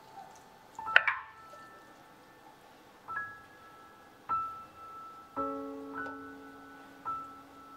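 Slow solo piano music: single notes a second or more apart, with a fuller chord about five and a half seconds in.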